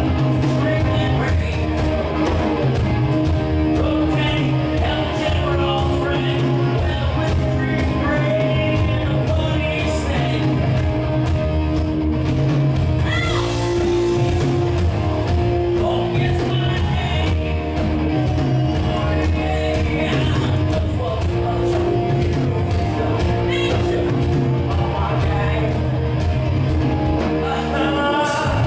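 A rock band playing live: a lead singer over electric guitars, bass and drums, loud and continuous.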